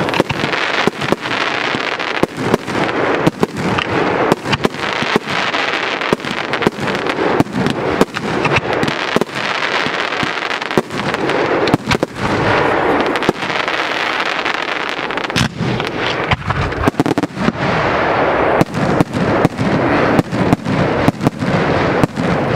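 Fireworks bursting overhead in a dense, continuous barrage: sharp bangs several times a second over a steady crackle.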